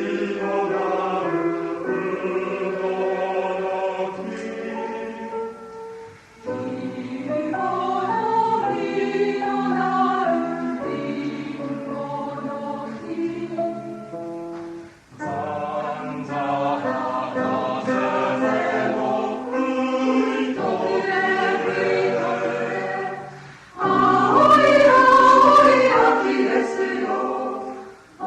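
Mixed choir of men's and women's voices singing a song in harmony, in phrases broken by short breaths; the last phrase, starting a few seconds before the end, is the loudest.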